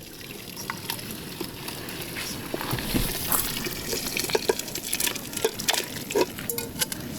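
Water pouring and sloshing in a cooking pot, with scattered small clinks and knocks throughout.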